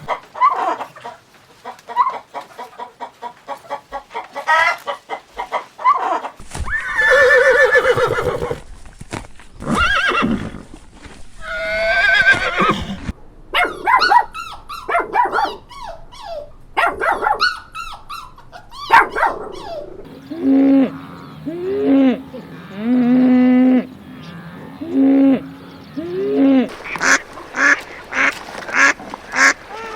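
A series of farm animal calls from several clips in a row, each stretch with a different kind of call; in the second half short calls repeat about once a second.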